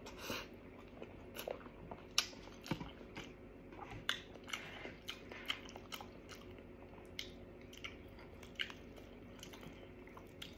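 Close-up chewing and mouth smacks of a person eating meat off neck bones with their hands: irregular short clicks and smacks, thicker in the first half and sparser later.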